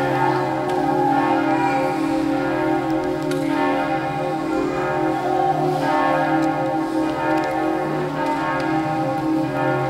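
Church bells of the Notre-Dame basilica in Beaune ringing together in a continuous peal, several bell tones blending into a steady, pulsing wash.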